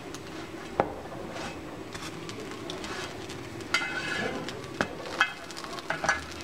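A spatula turning slices of bread over on a flat griddle pan (tawa), tapping and scraping against the pan several times, over a faint steady hiss.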